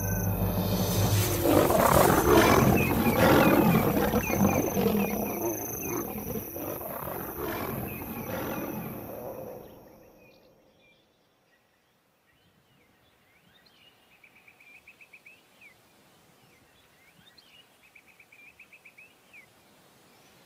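Lions roaring in a fight, loud and rough, fading away about ten seconds in. Faint repeated high trilling calls follow.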